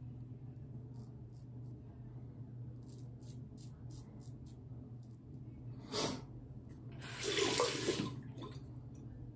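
Short scraping strokes of a Mühle R41 double-edge safety razor cutting through lathered stubble, then water running from a sink tap for about a second, seven seconds in, louder than the strokes.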